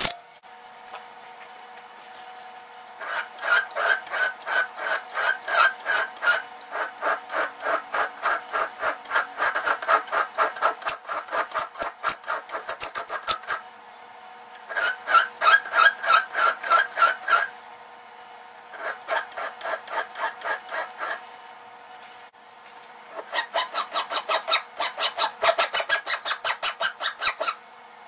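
Cast iron can opener part being hand-sanded with sandpaper: quick back-and-forth rasping strokes, about three a second, in four bouts separated by short pauses.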